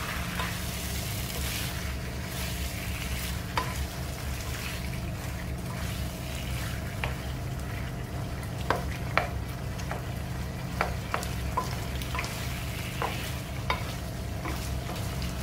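Wooden spatula stirring and scraping chicken pieces around a nonstick wok in a thick reduced adobo sauce, with sharp clicks now and then as it knocks the pan. A light sizzle of frying runs underneath, over a steady low hum.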